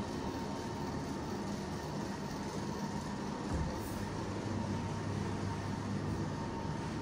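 Steady mechanical hum and rumble with a faint high whine; a deeper hum comes in about three and a half seconds in.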